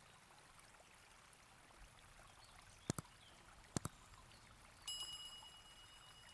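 Two quick double clicks, then a light clink that rings briefly and fades, over a faint hiss.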